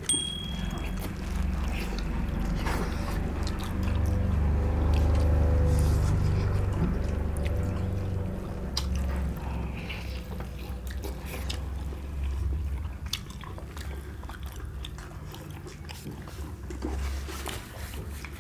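Close-up eating sounds: chewing and biting through mouthfuls of chicken leg curry and rice, with small wet clicks and smacks over a steady low rumble.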